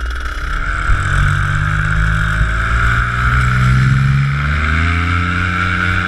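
Werenc Raket 120 two-stroke paramotor engine being throttled up for the take-off run, its pitch climbing steadily over several seconds.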